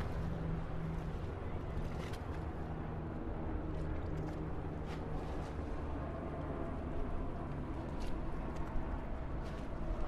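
Steady highway traffic ambience: a continuous rumble of passing vehicles, with a low engine drone through the first half and a few short, faint high ticks.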